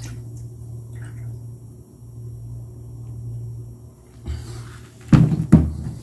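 Plastic car battery case knocking against the workbench a few times near the end as it is turned upright and set down, over a steady low hum.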